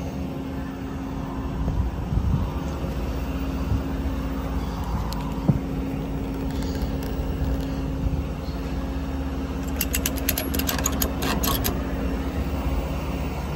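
Ford F550's 6.7 L Power Stroke diesel idling with a steady low hum. A quick run of clicks comes about ten seconds in.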